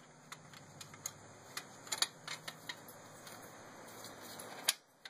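Light, scattered metallic clicks and taps as a steel reverse band is worked into an aluminium 4T60E transmission case by a gloved hand, with one sharper click near the end.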